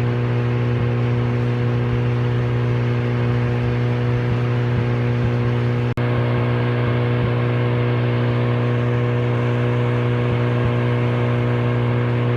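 Portable sawmill's engine running at a steady, even pitch, with a momentary dropout about halfway.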